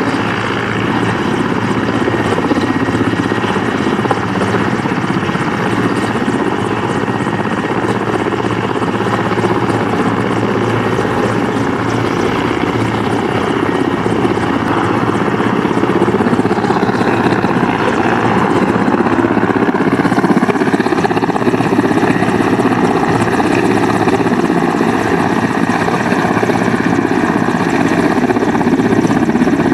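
Mil Mi-171Sh helicopter's twin turboshaft engines and main rotor running loud and steady on the ground. A little past halfway the sound swells and its whine shifts in pitch as power comes up for lift-off.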